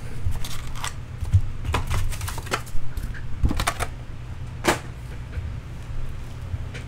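Irregular clicks and light knocks of trading cards and foil-wrapped card packs being handled on a desk, over a steady low hum.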